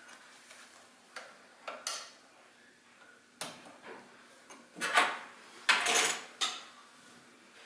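Irregular clicks and clunks of hard parts being handled and moved, with the loudest clatter about five to six and a half seconds in; no motor running.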